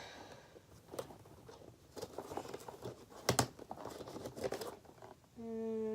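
Packaging being handled: crinkling and tearing with a few sharp clicks and knocks, the loudest about three seconds in.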